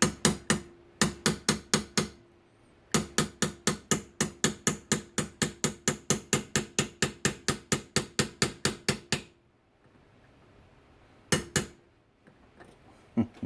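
Hammer tapping the pin back through the drive gear and shaft of a GM HEI distributor: sharp metallic taps with a light ring. A few quick runs in the first two seconds, then a steady run of about four taps a second for some six seconds, and two last taps near the end.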